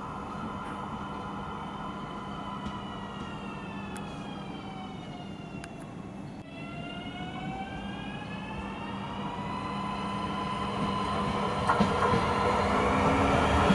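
Newag Impuls 2 electric multiple unit approaching, its traction drive giving a whine of several tones that glide down in pitch and then, about halfway through, glide back up. The running noise grows louder as the train nears, with a few clicks near the end.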